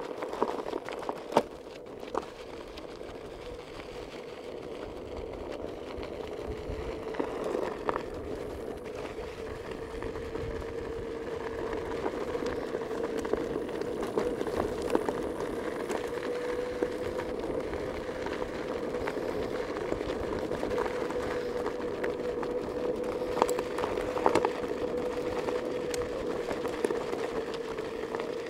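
A vehicle motor running steadily with an even hum, growing slightly louder over the first dozen seconds, with a few small clicks and knocks.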